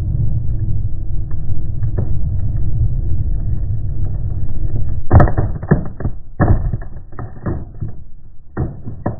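Truck engine rumbling low as the rear dual tires roll onto a plank over a motorcycle helmet; about five seconds in, a quick run of loud cracks and crunches as the helmet shell breaks under the weight, with two more cracks near the end.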